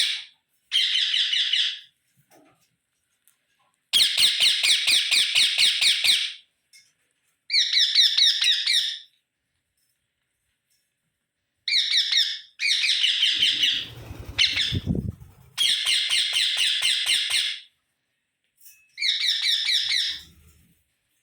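Pet rose-ringed parakeets (ringneck parrots) giving loud, shrill chattering calls: about seven bursts of rapidly repeated notes, each lasting a second or two, with short silences between them.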